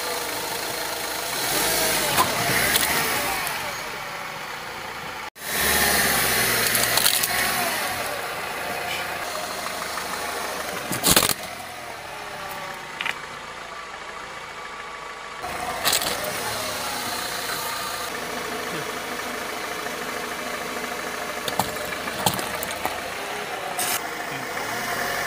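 A car's engine runs at low speed as its front tyre rolls over and crushes hard objects: a plastic computer keyboard, plastic toys and a clay pot. There are scattered cracks and snaps, with one loud sharp crack about eleven seconds in.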